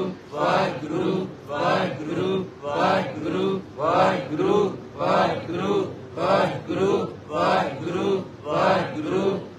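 Rhythmic male chanting of a short phrase repeated over and over, a pulse about twice a second, steady and unbroken.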